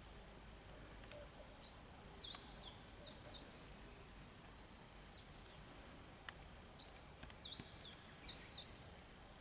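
A small bird singing two short phrases of quick, high, downward-gliding chirps, one about two seconds in and another about seven seconds in, over faint outdoor background noise.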